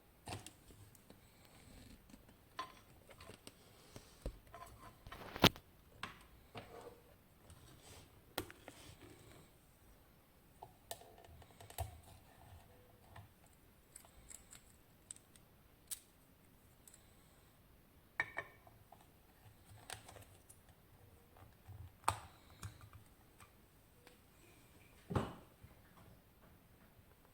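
A lock cylinder and metal lockpicking tools being handled, with irregular light clicks and knocks. The sharpest knock comes about five seconds in.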